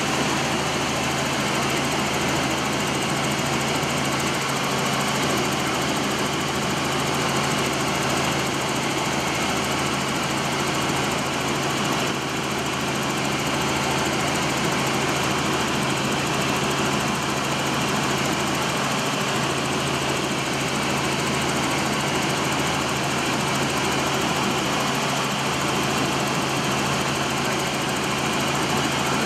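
Helicopter in steady flight, heard from inside the cabin: constant engine and rotor noise with a steady low hum, unchanging throughout.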